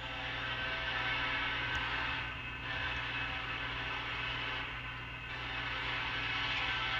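Nathan K5LLA five-chime air horn on BNSF SD70ACe 8560 sounding for a grade crossing: three long blasts, with short breaks about two and a half seconds and five seconds in.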